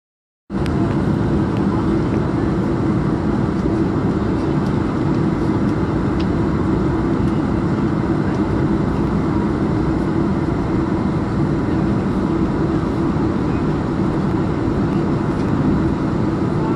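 Steady cabin drone inside a Boeing 747-400 taxiing, from its running engines and cabin air, cutting in abruptly about half a second in and holding even throughout.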